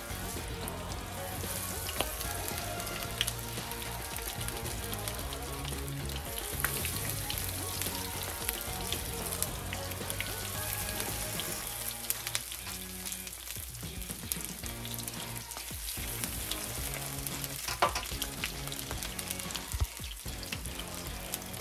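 Breaded green tomato slices frying in hot oil in a skillet: a steady sizzle with scattered pops and crackles.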